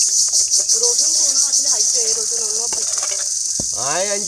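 Loud chorus of insects: a shrill, steady high buzz that pulses rapidly. A brief knock comes near the end.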